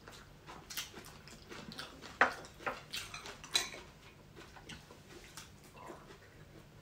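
Eating sounds: scattered, irregular sharp clicks and smacks of chewing and of fingers picking at food on the plates.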